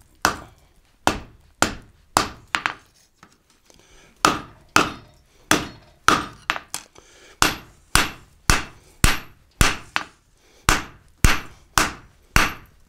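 Hand hammer striking hot leaf-spring steel on an anvil, about two blows a second with a short pause near the start, each blow a sharp strike with a faint ring. The blows bend the end of the bar over.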